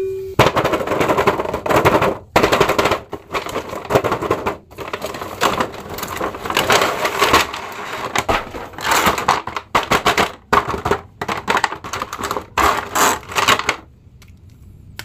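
Clear plastic blister packaging crackling and crinkling in loud, irregular bursts as it is handled and pulled open, stopping near the end.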